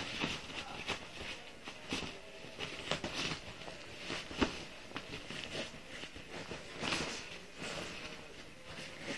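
A dog pawing and digging at a bed's duvet, the fabric rustling and scraping in irregular strokes, with one sharper thump about four and a half seconds in.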